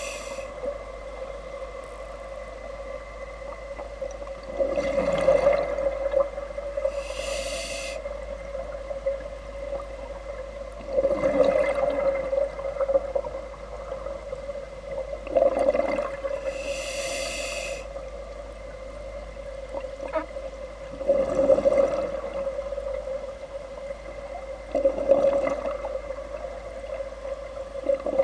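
Underwater sound of a scuba diver breathing through a regulator: a short sharp hiss on some inhalations and a rush of exhaled bubbles every few seconds. Under it runs a steady hum.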